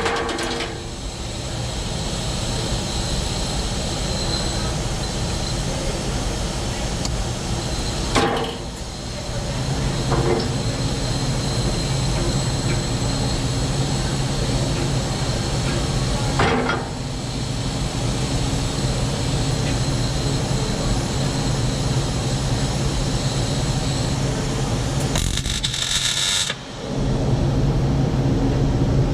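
MIG welder arc crackling and hissing in long runs, with short breaks about 8 seconds in, again about 16 seconds in, and near the end; a beginner's practice welds.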